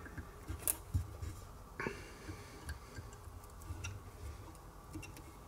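Faint, scattered light clicks and ticks of hands wrapping thin floral wire around a bass jig's skirt held in a vise.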